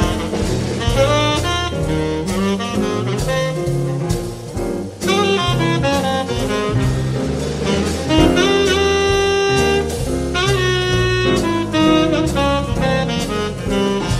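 Small jazz group playing live: saxophone carrying the lead line over grand piano, walking upright bass and drum kit, with a brief break in the saxophone line about five seconds in.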